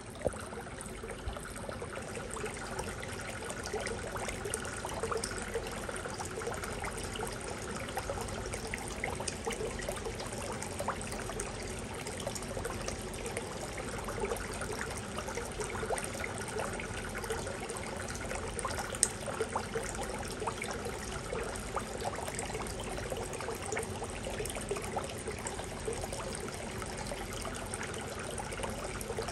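Steady trickle of running water into a shallow pond, with many small drips and splashes throughout.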